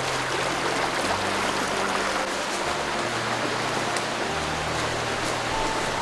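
A shallow forest stream rushing over rocks, a steady wash of water noise, with soft background music of held low notes.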